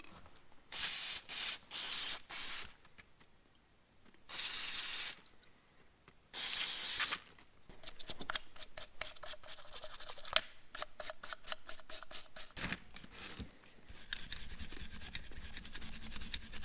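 Short hissing blasts of spray cleaner on the Carter BB1 updraft carburetor: four quick bursts, then two longer ones. These are followed by a steady scrubbing and scraping on the carburetor body, cleaning off grime.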